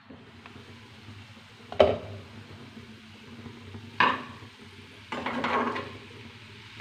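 Glass pan lid lifted off a steel kadhai and set down with a sharp clink about two seconds in, then a metal spoon knocking against the pan and scraping through the cooked potato and capsicum as it is stirred.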